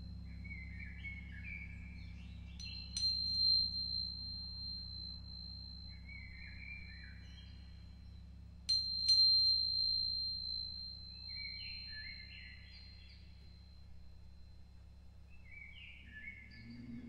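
Meditation music: a high-pitched metal chime with a pure, steady ringing tone, struck sharply about three seconds in and again near nine seconds, each strike renewing the ring. Short falling runs of softer notes come every few seconds over a low steady drone.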